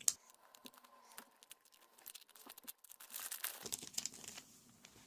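A plastic Rubik's-Cube-style puzzle being twisted by hand to scramble it: scattered clicks and light rattling of its layers turning, busier about three seconds in. The turning is pretty smooth.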